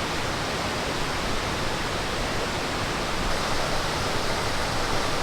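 Steady rush of water from a waterfall and stream, a little louder and brighter for the last two seconds.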